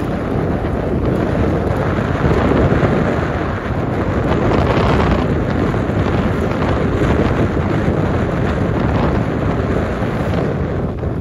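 Wind buffeting the microphone while moving along at riding speed: a loud, steady rush.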